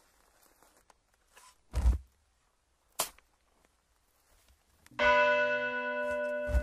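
A spade striking earth: a dull thud, then a sharper knock about a second later. About five seconds in, a church bell is struck and rings on.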